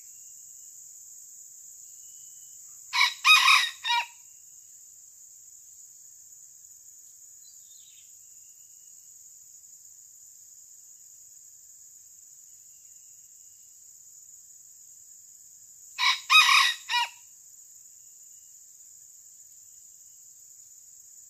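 Red junglefowl rooster crowing twice, about thirteen seconds apart. Each crow is a short call of about a second in four parts, over a steady high insect drone.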